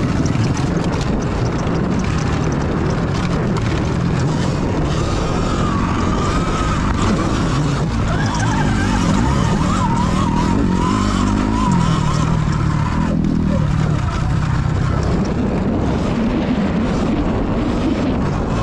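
Riding a Sur Ron electric dirt bike on single-track dirt trail: a steady rush of wind and tyre noise. A thin whine wavers up and down through the middle and stops about two-thirds of the way in.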